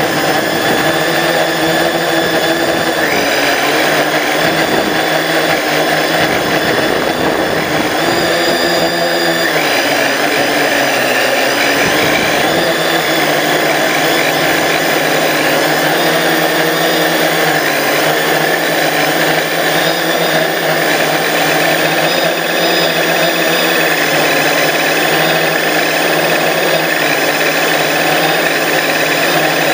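Drone's electric motors and propellers buzzing steadily in flight, recorded from the drone's own onboard camera, with several tones whose pitch wavers slightly.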